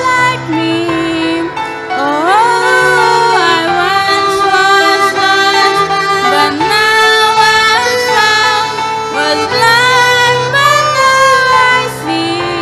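A woman sings a Christian song with digital piano and violin accompaniment.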